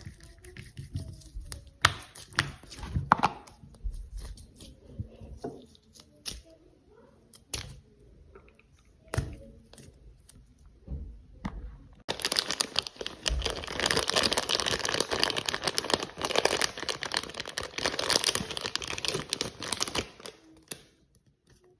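Squishy fidget toy being squeezed and handled, crinkling and crackling. Scattered crackles and clicks come first, then about twelve seconds in a dense, continuous crackling, tearing noise runs for about eight seconds before stopping.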